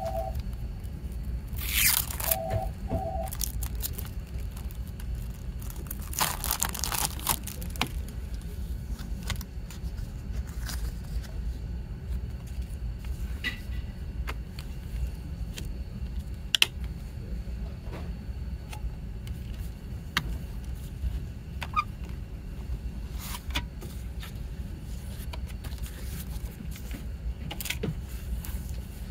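Cellophane shrink-wrap torn and crinkled off a plastic CD jewel case: a quick rip about two seconds in and a burst of crinkling around six seconds in. This is followed by scattered plastic clicks and taps as the case is handled and opened and the booklet is taken out. A couple of short squeaky chirps come right at the start.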